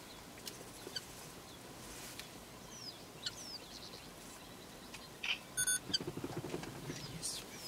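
Wild birds giving short, scattered chirps and whistles over faint outdoor ambience. From about five seconds in, a stretch of rustling and crunching comes in under them.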